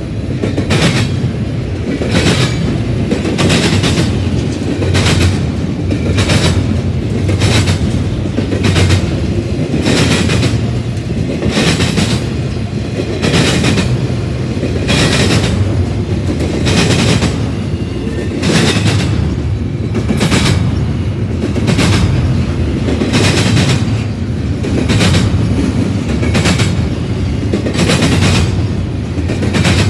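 Double-stack intermodal container train rolling past: the well cars give a steady, loud rumble, with wheel clacks repeating in a regular rhythm, about one to two a second.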